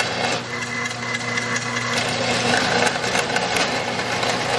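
Small 6-inch metal-cutting bandsaw running, its blade cutting through a flat metal bar: a steady motor hum under a continuous rasp of the teeth on the metal.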